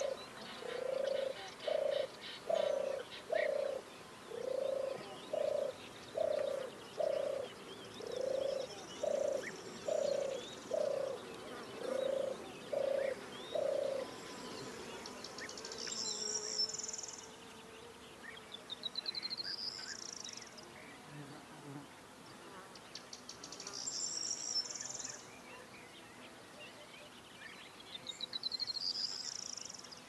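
Evening birdsong in the open: scattered high chirps, trills and short warbling phrases from several birds. Through the first half a low call repeats steadily, about one and a half times a second, then stops.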